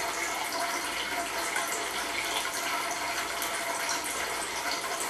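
Thin streams of water splashing steadily into two metal cans at the bottom of a homemade Kelvin water dropper, a continuous trickling and pattering.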